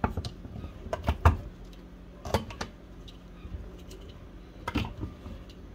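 Manual can opener being worked on a metal can: irregular sharp metal clicks and knocks, a few at a time, near the start, around a second and two seconds in, and again near the end.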